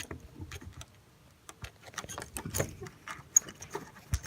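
Irregular light clicks, ticks and scraping of a throttle cable being fed by hand through its cable tube, with a brief lull about a second in.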